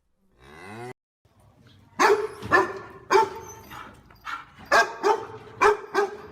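Dog barking repeatedly in sharp, loud barks, about two a second, starting about two seconds in. It is preceded by a short rising animal call and a brief pause.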